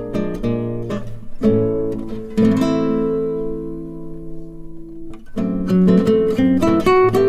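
Background music of fingerpicked acoustic guitar: quick plucked notes, a chord left to ring and fade for a few seconds in the middle, then brisk picking again.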